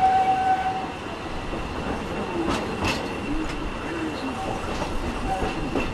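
Walt Disney World Railroad steam train running, heard from one of its passenger cars: a steady rumble and rattle of the rolling cars, with a steady high tone that stops about a second in and two sharp clicks of the wheels over rail joints around two and a half to three seconds in.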